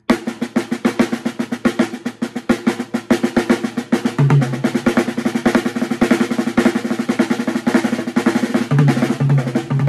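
Snare drum played with sticks in a steady, fast stream of strokes, looping a five-stroke sticking of one single and two doubles (R, LL, RR then L, RR, LL). Deeper drum hits join about four seconds in and again repeatedly near the end.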